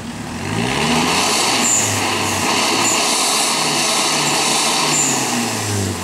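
Toyota Hilux diesel engine revving hard while its wheels spin in mud and water, churning up a hissing spray of mud. The revs climb about half a second in, stay high, and fall away near the end.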